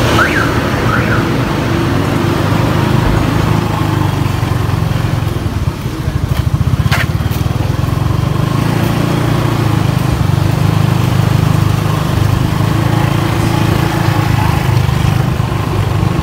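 Street traffic: motorbike and car engines running steadily as they pass, with a short pulsing stretch about six seconds in.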